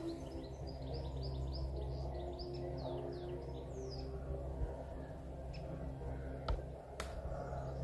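A small songbird singing a quick run of chirping notes for about the first four seconds, over a low, steady hum of held tones. Two sharp clicks come near the end.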